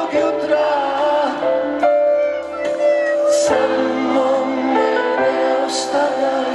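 Live pop concert music with singing, over held chords that change every couple of seconds.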